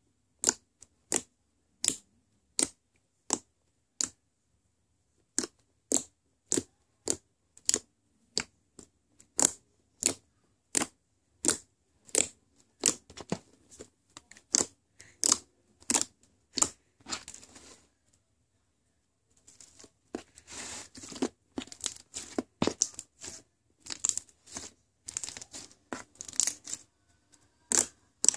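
Foam-bead slime (floam) squeezed and poked by hand, giving a steady series of sharp pops, a little over one a second. After a short pause about two-thirds of the way through, the kneading turns into a denser run of crackling and popping.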